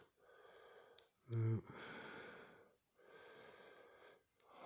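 Two long, heavy out-breaths, sighs of frustration at a padlock that won't pick, after a short spoken "no"; one sharp click about a second in.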